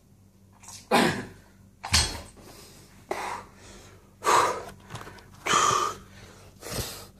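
A man's hard, breathy gasps, six of them about a second apart.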